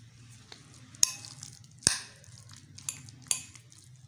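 Metal spoon stirring and mashing shredded chicken with mayonnaise in a glass bowl, with soft squishing and scraping. The spoon clinks sharply against the glass four times, loudest about one and two seconds in. A low steady hum runs underneath.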